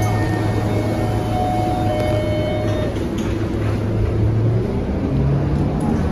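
Scania K230UB city bus's nine-litre five-cylinder diesel engine and drivetrain heard from inside the cabin while the bus drives, a steady low drone that steps up in pitch about five seconds in.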